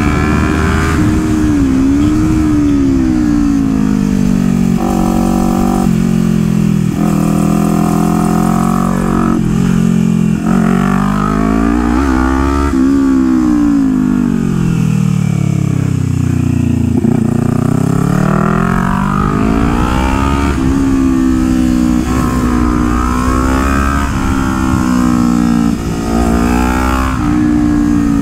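Kawasaki Ninja 400's parallel-twin engine revving up and down over and over as the bike rides a tight track, with a few abrupt steps in pitch at gear changes.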